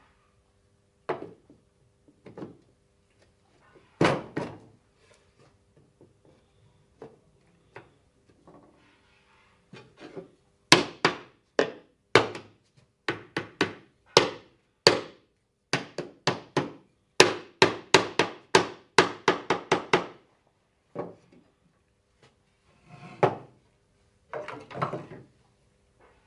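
Hammer blows on a wooden panel, knocking it down onto the frame of a small wooden box. A few scattered wooden knocks come first; about ten seconds in, a run of quick, sharp strikes lasts about ten seconds, and a few more knocks follow near the end.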